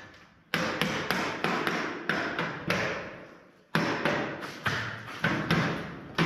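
Hammer tapping on a window frame as it is fitted: a quick run of sharp blows, about three a second, with a pause of under a second just after the middle before the blows resume.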